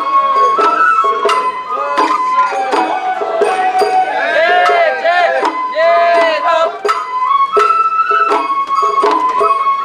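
Sawara bayashi festival music: a bamboo flute plays a melody in long held notes over sharp, irregular drum strikes. People's voices are mixed in, strongest around the middle.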